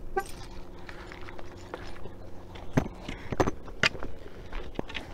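A car's short lock chirp right at the start, as the car is locked with its key fob. Then a few sharp clicks and knocks, about two a second, from keys and handling, over a steady low hum.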